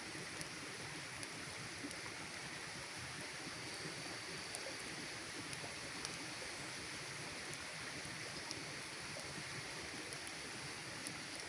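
Campfire burning: a steady soft hiss with scattered small crackles and pops.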